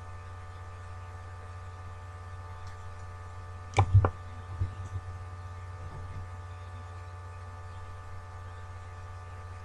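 Steady electrical mains hum with a few overtones. About four seconds in there are two short sharp clicks, then a few fainter ones.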